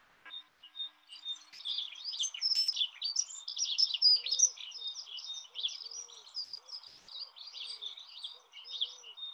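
A crowd of small birds chirping and twittering busily and overlapping, with short low calls repeating underneath, from the soundtrack of a bell-ringing video.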